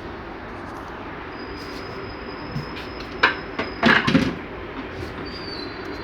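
A few sharp clicks and knocks, with the loudest clatter about four seconds in, over a steady background hiss: parts being handled at the back of a washing machine while its power supply is checked. A faint thin high whine comes and goes.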